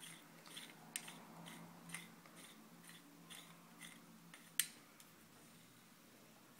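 Threaded head cap of an immersion UV-C lamp being screwed hand-tight onto its quartz glass sleeve: a string of faint ticks and scrapes from the thread, with one sharper click about four and a half seconds in.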